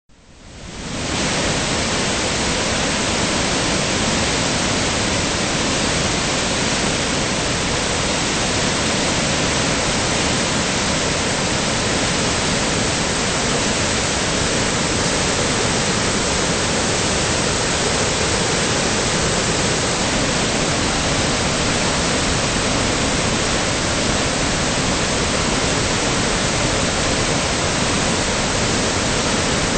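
South Yuba River in flood: high, muddy whitewater rushing through boulder rapids, a loud steady rush that fades in over the first second.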